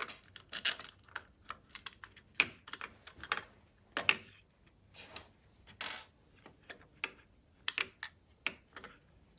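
Irregular light clicks and taps of small hardware being handled as a wing nut, washer and screw are taken off the indexing guide. A few louder clicks stand out about four and six seconds in.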